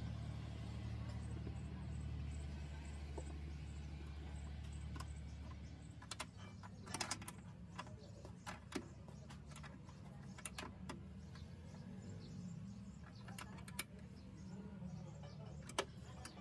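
Scattered clicks and knocks of plastic and metal as an air filter housing is fitted onto a carburetor intake hose and fastened with a screwdriver, over a low steady hum that drops away about six seconds in.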